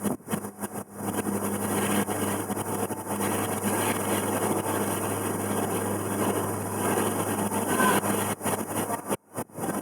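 River cruise boat's engine running steadily with an even low hum, over water and air noise. Choppy buffeting on the microphone comes at the start and again near the end.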